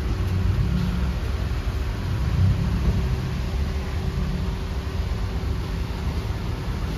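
Steady low rumble of cars, engines idling and traffic moving, with a faint steady hum.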